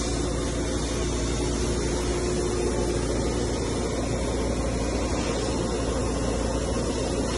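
Hitachi Seiki HG400III horizontal machining center running a test program, its axes traversing and B-axis table rotating: a steady mechanical hum and hiss with a few faint steady tones, without breaks.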